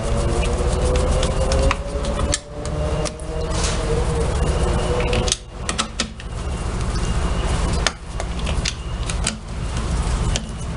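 Sharp clicks and light knocks of tools and metal parts being handled, over a steady low rumble and a slowly rising hum that stops about halfway through.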